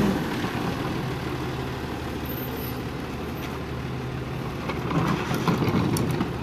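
Rear-loading garbage truck's diesel engine idling steadily at the curb. About five seconds in there is a louder stretch of clatter and knocks as trash is handled at the back of the truck.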